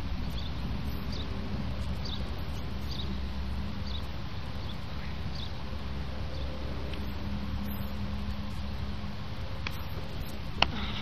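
Outdoor background: a steady low rumble with faint short high chirps about once a second, and one sharp click near the end.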